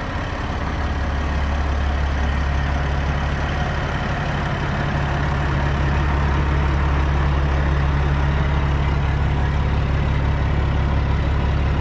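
Heavy diesel engine idling steadily with a deep, even hum, getting a little louder over the first few seconds.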